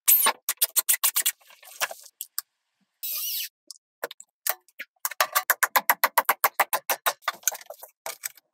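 Rapid run of sharp taps and knocks from work on wooden boards and logs, about eight a second at the busiest, with a short high hiss about three seconds in.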